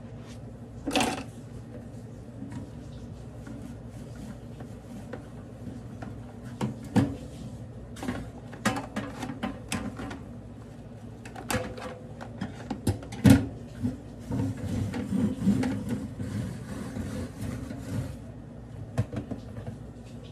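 Dishes being hand-washed in a stainless steel sink: scattered clinks and knocks of dishes and utensils, and sponge scrubbing on plastic, over a steady low hum.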